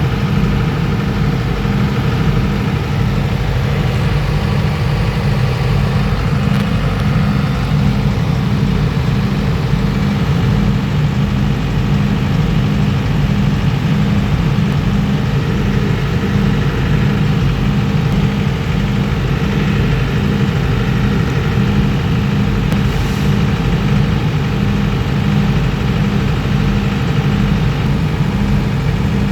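Railway power car's diesel generator set running steadily: a loud, even engine drone that holds constant without revving.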